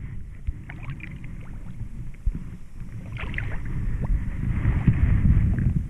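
Creek water sloshing and splashing as a caught smallmouth bass is lowered back into the shallows, over a low rumble that grows louder toward the end.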